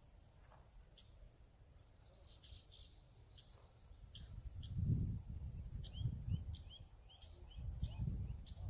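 Small birds calling outdoors: short, high chirps, with a quick run of repeated down-slurred chirps in the second half. A low gusting rumble rises under them from about halfway.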